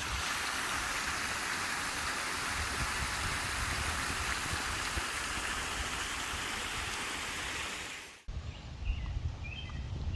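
Steady, even rushing noise, like running water, that cuts off abruptly about eight seconds in. A few faint high chirps follow near the end.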